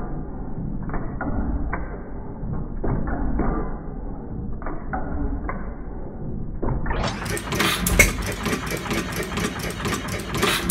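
1909 Domestic 1 hp hit-and-miss engine running, with an uneven beat of knocks and clicks over a low rumble. About seven seconds in the sound turns brighter and a little louder.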